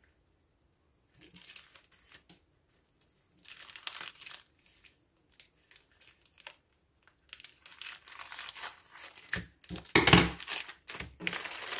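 Grey plastic mailer bag crinkling and rustling in short bursts as it is handled and cut open with scissors, loudest about ten seconds in.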